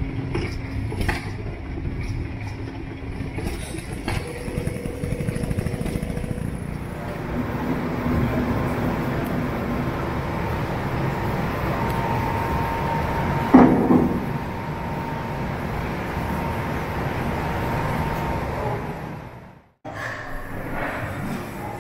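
Stationary steam engines running: a steady mechanical rumble and clatter, with one sharp, loud sound about fourteen seconds in. The sound cuts out for a moment shortly before the end.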